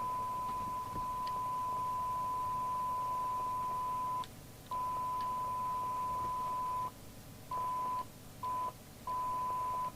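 A steady, single-pitched test tone from the CB test setup, used while trying to transmit on a Rotel RVC240 CB radio through its original microphone. The tone breaks off about four seconds in, comes back, and then drops in and out several times near the end. The transmission is cutting in and out, which seems to come from a dirty switch in the microphone.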